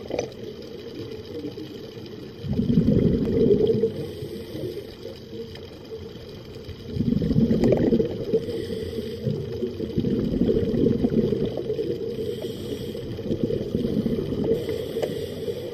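Scuba regulator breathing heard underwater: surges of exhaled bubbles a second or more long, with faint hissing inhalations between them every few seconds.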